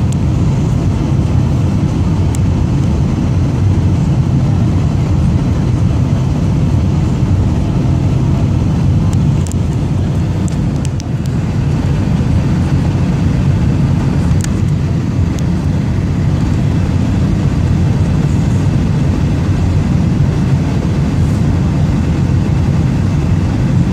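Jet airliner cabin noise during descent on approach: a steady low rumble of engines and rushing airflow heard from a window seat over the wing.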